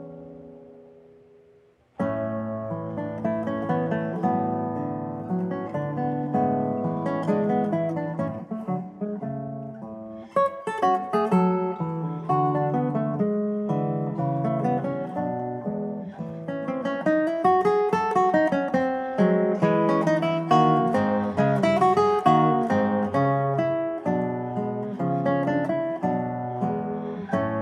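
Solo classical guitar, nylon strings plucked. A chord rings and dies away almost to silence, then playing resumes suddenly about two seconds in with quick runs of notes, growing louder about ten seconds in.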